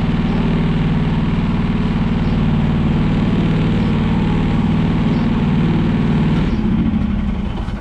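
Chinese 1-ton mini excavator's engine running steadily, dying away near the end.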